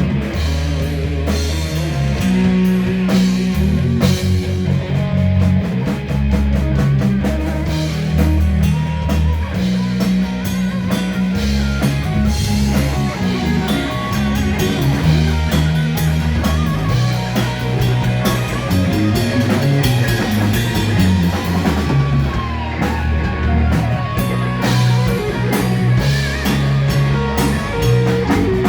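A rock band playing live: guitar over steady low bass notes and a drum kit. Around two-thirds of the way through, a guitar line bends up and down in pitch.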